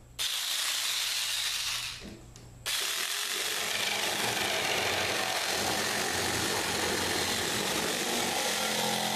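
Worn-out handheld power saw with a dull blade starting into a wooden board. It runs briefly, stops about two seconds in, then starts again and runs steadily; the worn blade is not cutting well.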